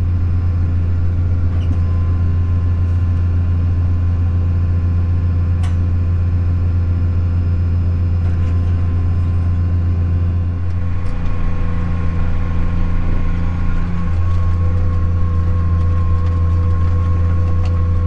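Tractor engine running steadily under load while pulling a tandem disk, heard from inside the cab as a deep, even drone with a steady whine on top. Its note changes slightly about eleven seconds in and again near fourteen seconds.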